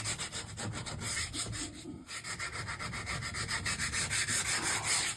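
Sandpaper rubbing by hand on the solid wood of an old table in rapid, even back-and-forth strokes, with a brief pause about two seconds in.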